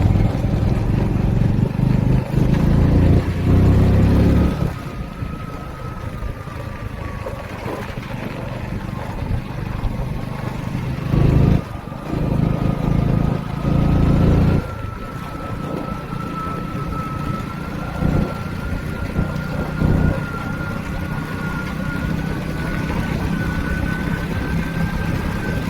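A vehicle on the move, its engine running under heavy wind buffeting on the microphone that comes in loud gusts, with a thin whine that climbs slowly in pitch through the second half.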